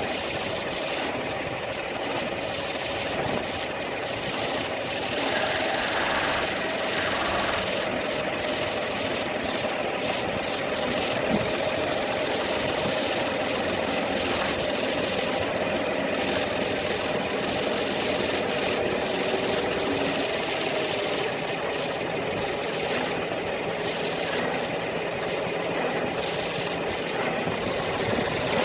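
Peugeot 308 II engine running steadily, with a noise from its air-conditioning compressor that the owner takes for a faulty compressor. A faint steady whine comes in during the middle part.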